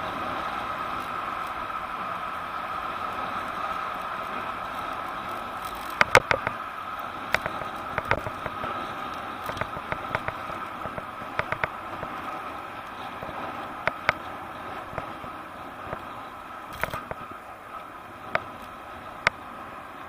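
Riding a bicycle along a busy road: a steady rush of wind and passing traffic, with sharp irregular clicks and knocks starting about six seconds in and scattered through the rest.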